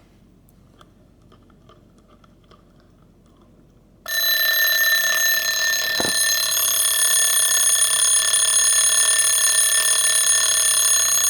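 Faint clicking, then about four seconds in the Jaeger-LeCoultre Recital 8-day alarm clock's alarm goes off, ringing loudly and steadily without a break.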